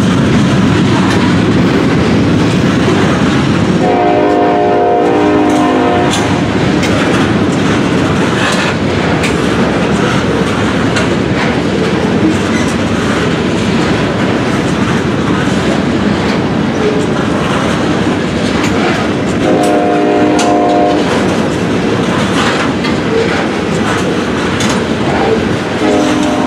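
Long string of loaded oil tank cars rolling slowly past with a steady rumble and clicking wheels over the rail joints. A multi-note locomotive horn sounds about four seconds in, again around twenty seconds in, and starts once more at the very end.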